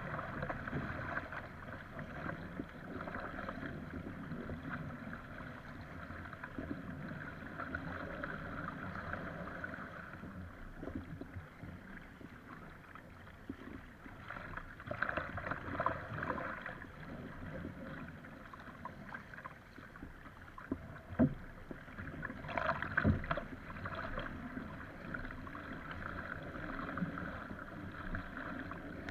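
Water rushing and splashing along an Epic V7 surfski hull as it is paddled through choppy wind waves, with paddle blades splashing. The splashing gets louder twice in the second half, with a couple of sharp slaps of water on the hull.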